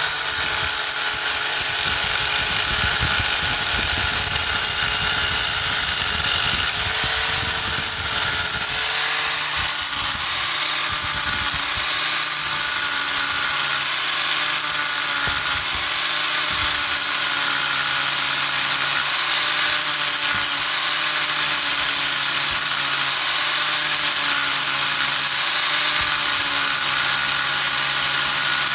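A handheld electric power tool running continuously under load while working on a broken stud, its pitch shifting about nine seconds in.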